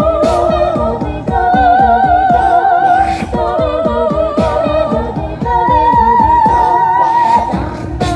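Song with sung, held notes that waver in vibrato, changing pitch every second or two over a steady beat.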